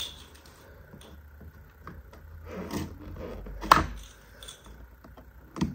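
Small objects handled on a table: scattered light clicks and knocks, with one sharp click about two-thirds of the way through and another near the end.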